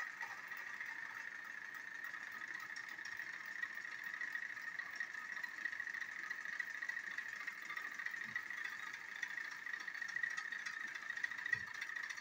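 Two battery-powered TrackMaster toy train engines pushing against each other on plastic track, their small electric motors and gears whirring steadily with a high buzz. A faint low thump comes near the end.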